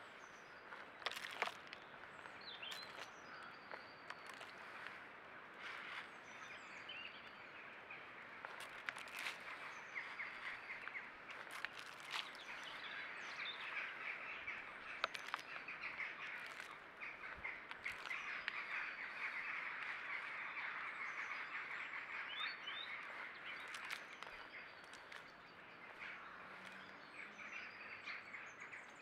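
Small birds chirping and twittering, the chatter thickest through the middle, with a few sharp clicks scattered throughout.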